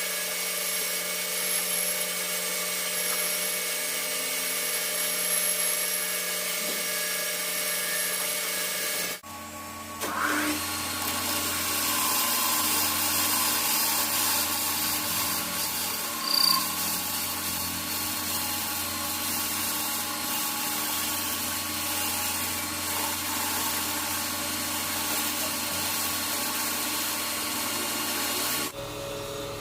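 Metal lathe running and cutting: a steady machine whine with a hiss over it. The sound changes abruptly twice.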